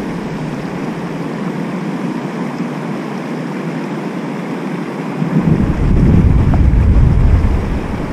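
Wind blowing across the camera microphone as a steady hiss, with a stronger gust buffeting the mic in a low rumble about five seconds in, lasting some two seconds.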